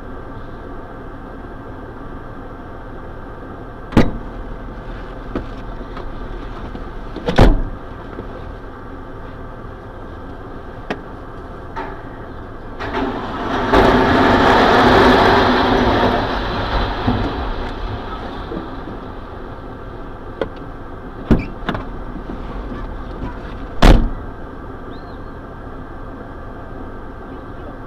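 A heavy vehicle engine running steadily, with several sharp knocks. Midway there is a loud rushing noise lasting about three seconds.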